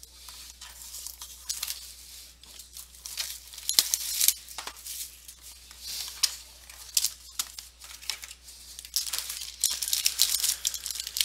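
Packaging on a box of trading cards being torn open and handled: crinkling and tearing with scattered small clicks. It gets busier near the end.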